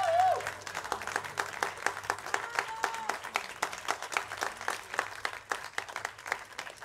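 Audience applauding, the clapping thinning out and growing quieter toward the end. A held, wavering note that runs in from before stops about half a second in.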